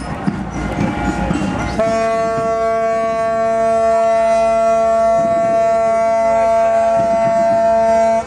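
A ship's horn sounding one long, steady blast, starting about two seconds in, the ship's signal on departing harbour. Before it, mixed crowd noise.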